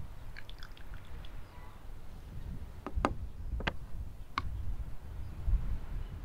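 A metal spoon stirring in a small wooden bowl, clicking sharply against the bowl three times, about two-thirds of a second apart, around the middle.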